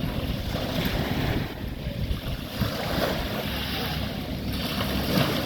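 Sea waves washing up on a sandy beach in surges, with wind buffeting the microphone as a low rumble.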